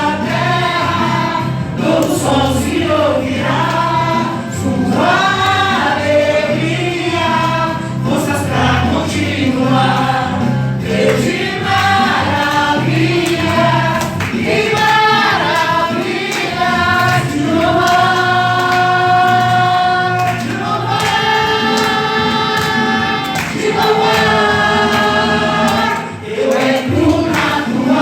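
A choir sings a Christian praise-and-worship song over instrumental accompaniment with a low bass line. Long notes are held in the second half, with a brief dip just before the end.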